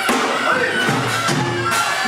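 Live Korean folk music accompanying a deotbaegi mask dance: regular percussion strikes with held pitched tones over them.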